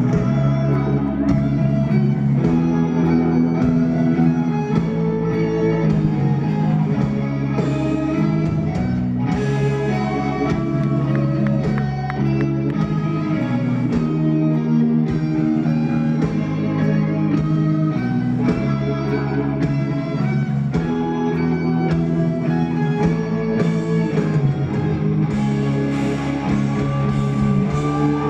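Live rock band playing loud and steady, electric guitar to the fore over a drum kit.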